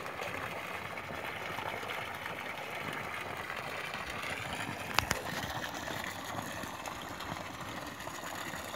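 Steady rush of running water, with one sharp click about five seconds in.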